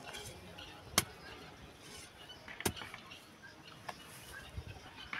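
A long-handled hoe chopping into soil: two sharp strikes about a second and a half apart, then a couple of fainter knocks.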